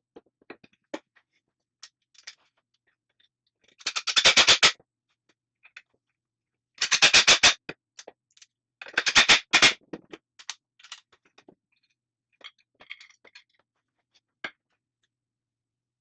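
Power drill driving pocket screws into a wooden stool frame in three short bursts, with small clicks and knocks from handling the parts in between.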